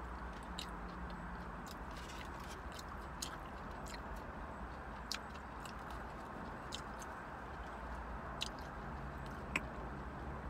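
Close-miked chewing and biting of fried catfish and french fries, with scattered small wet clicks and crunches, one sharper near the end, over a steady low hum.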